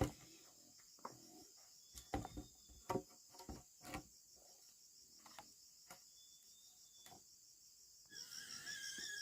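Insects, likely crickets, chirring steadily in a high, fast pulsing drone, with a few scattered knocks and taps; the insect sound grows louder and busier about eight seconds in.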